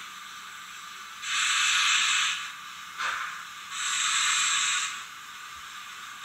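Zimo digital sound from HO-scale Roco BR 52 steam locomotive models: steam hisses played through the models' small speakers, with no bass. Two long hisses come about two and a half seconds apart, with a short puff between them.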